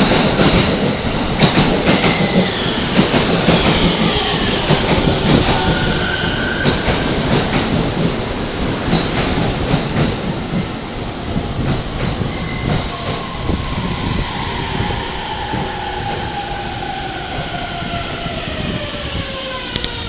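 E231 series electric commuter train pulling into the platform: wheels clatter over the rail joints and squeal, and the motor whine falls steadily in pitch as the train brakes to a stop.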